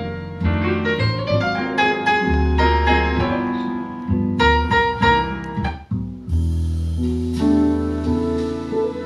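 Piano music with bass played over Canton Ergo RCL floor-standing speakers driven by a Luxman C-383 preamplifier and M-383 power amplifier. About six seconds in there is a brief break, then a fuller passage with a high shimmer.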